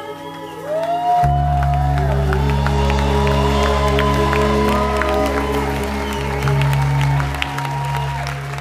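Live acoustic guitar and fiddle with a deep bass note holding the final chord of a song, ringing out and fading near the end, with scattered claps and whoops from the crowd over it.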